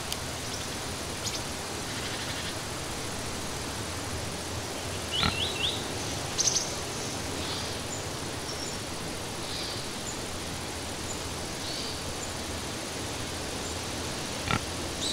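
Steady outdoor background hiss with scattered small bird chirps, and two short sharp sounds, one about five seconds in and one near the end.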